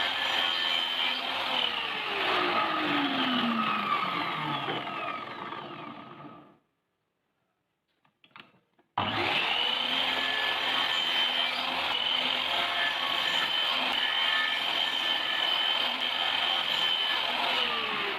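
Electric power tool motor running at speed with a steady whine; its pitch sags and it fades out about six seconds in, a few faint knocks follow, and it starts up again about nine seconds in and runs steadily.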